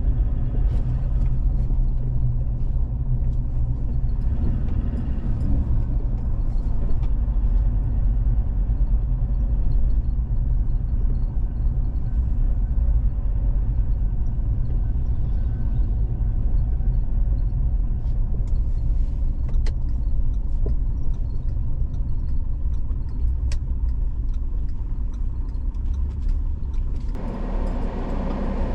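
Steady low road rumble from a moving vehicle, heard from on board as it drives along. Near the end a harsher, brighter noise joins the rumble.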